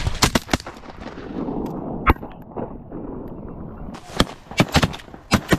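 Shotgun shots at flying ducks: three quick blasts just after the start, a single shot about two seconds in, and another rapid string of shots near the end.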